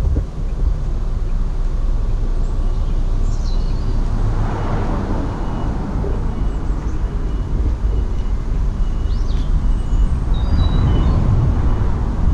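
Outdoor road-traffic noise: a steady low rumble, with passing vehicles swelling twice.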